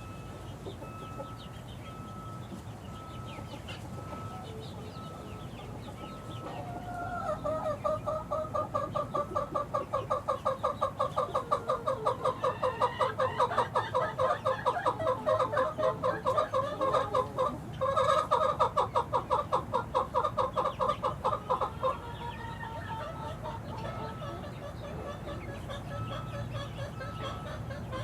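Young chickens, about six weeks old, peeping and chirping, with a long run of rapid, evenly repeated calls starting about a quarter of the way in and stopping around three quarters through, louder than the calling around it.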